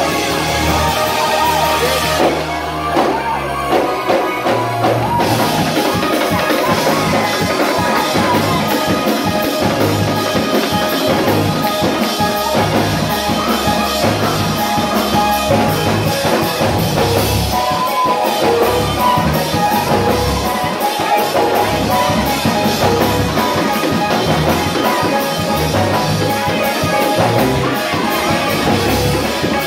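Loud live gospel band music with drum kit, bass and guitar playing a steady beat.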